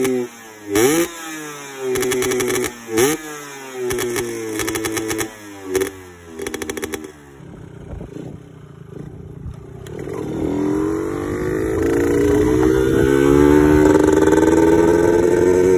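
Yamaha 125ZR two-stroke single, tuned with an Ezos barrel and a DT piston, revved in quick sharp blips for the first few seconds. After a lull about seven seconds in, the bike pulls away and the engine note climbs steadily as it accelerates.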